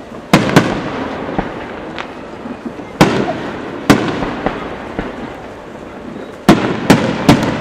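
Aerial firework shells bursting in loud bangs: a pair about a third of a second in, single bangs near three and four seconds, and three in quick succession near the end, each trailing off slowly, with fainter pops and crackle between.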